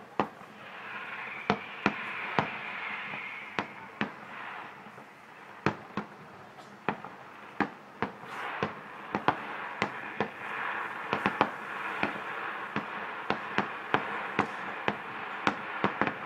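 Aerial fireworks shells bursting in the distance: a long, irregular string of sharp bangs, about two a second, coming faster from about halfway through, over a steady background hiss.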